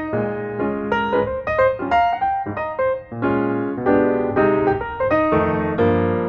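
Background music: piano, playing a series of chords and melody notes.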